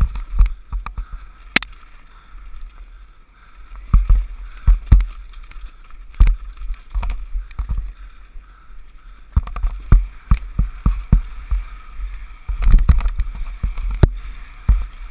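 Downhill mountain bike ridden fast over a rough dirt trail: the bike and tyres clatter and knock over bumps at irregular intervals, with wind rumbling on the microphone.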